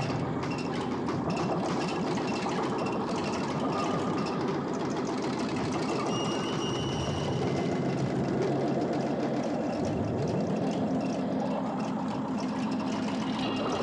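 Oil-well pump jack machinery running, a steady, rapid mechanical chugging. A rising tone comes in about ten seconds in.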